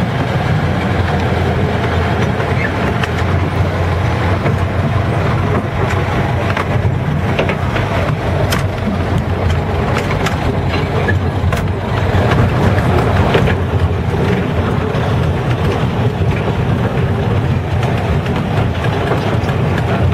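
Diesel engine of a small 600 mm narrow-gauge locomotive running steadily, heard close up from its bonnet beside the exhaust stack. Scattered clanks and knocks from the running gear come in about six seconds in and die away after about fourteen seconds.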